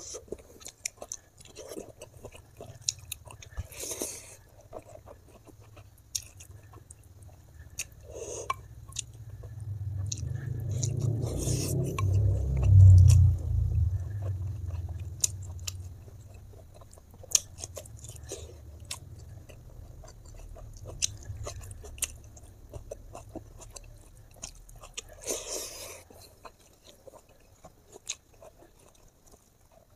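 Close-miked chewing and lip smacks of someone eating pork, with many short wet clicks throughout. A low rumble swells up around the middle and fades away again.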